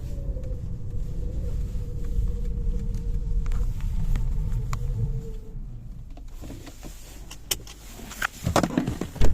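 Driveshaft center support bearing of a car humming with a steady whine over a low rumble. About five and a half seconds in, the whine and rumble die away, and a few sharp clicks and knocks follow, the loudest near the end.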